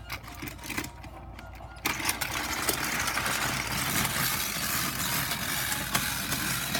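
A small motor and gears whirring with a rapid, steady clatter, getting louder about two seconds in.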